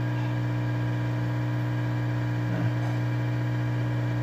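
Hot-air gun of a soldering rework station running, a steady hum from its blower as it heats a radiator-fan thermal switch.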